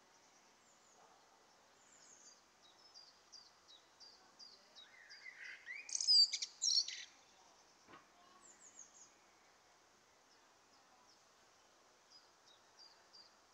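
Birds chirping: a quick run of thin, high, falling chirps, with a louder burst of calls about six seconds in.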